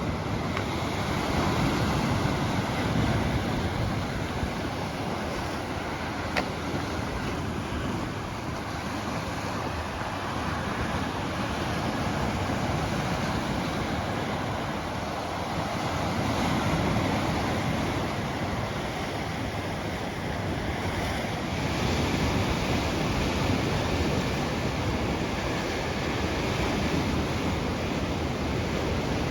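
Ocean surf washing ashore, rising and falling in slow swells, with wind buffeting the microphone.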